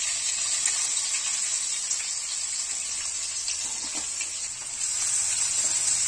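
Freshly added sliced onions sizzling in hot oil with mustard seeds, cumin and pepper in a non-stick kadai, a steady hiss. A spatula begins stirring them near the end.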